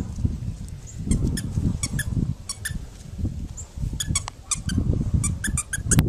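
A green rubber dog-bone squeak toy being chewed by a dog: many short, high squeaks in quick clusters, thickest in the last two seconds, over a low rumbling noise. The toy's cheap squeaker is failing from the chewing and squeaks only now and then.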